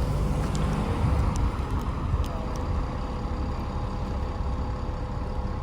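Bus engine running in a steady low rumble; a faint steady whine comes in about two seconds in.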